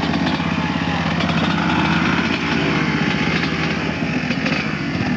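Enduro dirt bike engine running steadily with a rapid pulsing drone, under load as the bike climbs a steep dirt slope.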